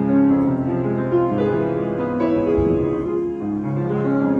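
Piano playing a slow melody over sustained, overlapping chords.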